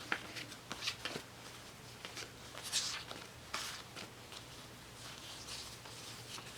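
Paper sticker sample sheets being handled and leafed through: soft, intermittent paper rustles and light taps, over a faint steady low hum.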